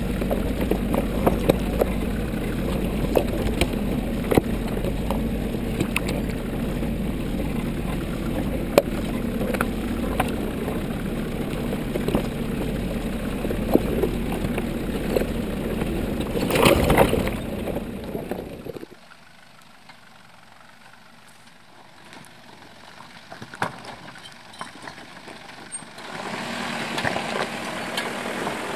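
Four-wheel drive engine running at low revs as the vehicle crawls over loose rocks, heard close to the front wheel, with frequent knocks and crunches of stones under the tyre and a louder grinding crunch about 17 seconds in. At about 19 seconds the sound drops suddenly to a faint background, and a vehicle's engine rises again near the end.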